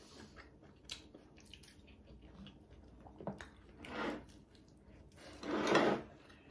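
Close-miked eating sounds at a meal: a few faint clicks of chopsticks and dishes, then two short noisy mouth sounds of someone eating, about four and six seconds in, the second the loudest.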